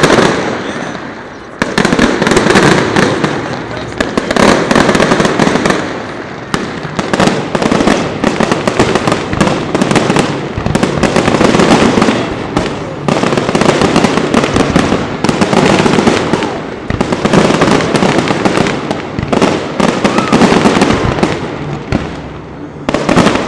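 Fireworks display: dense, rapid bangs and crackling that swell and ease in waves every couple of seconds.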